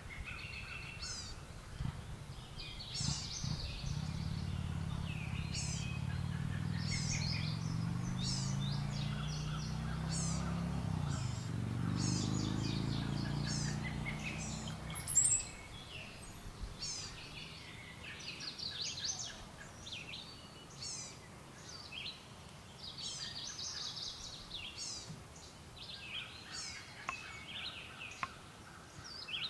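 Small songbirds calling over and over in short, high notes. A low droning hum swells in a few seconds in and fades away about halfway, and a single sharp click sounds near the middle.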